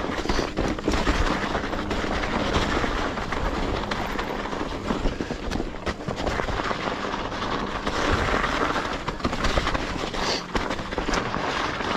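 Mountain bike rolling down a snowy trail: a continuous rush of tyre noise with rapid clattering and knocks as the bike rattles over bumps.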